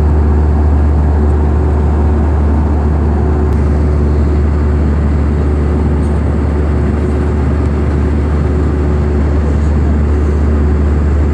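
Steady, loud drone of an aircraft cabin in flight: a deep, even engine hum under a constant rush of air noise.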